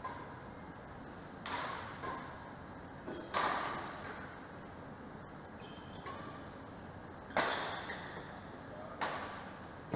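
Badminton rackets striking a shuttlecock in a rally: sharp smacks every second or two, each ringing briefly in a large hall, the loudest about three and seven seconds in.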